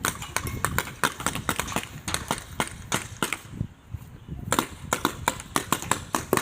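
Airsoft guns firing: a rapid, irregular run of sharp pops, several a second, likely from more than one gun.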